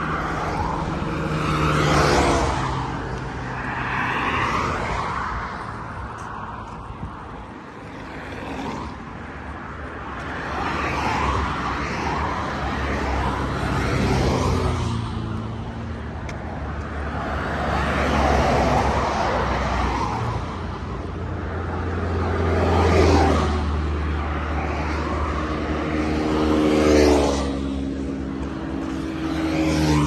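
Road traffic: cars passing one after another, each swelling and fading, some with an engine note that falls in pitch as it goes by.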